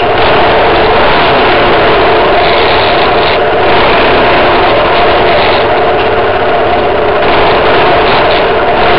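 Trail motorcycle engine running under way, heard loud and close from on board the bike, at a fairly steady pitch under a thick rushing noise.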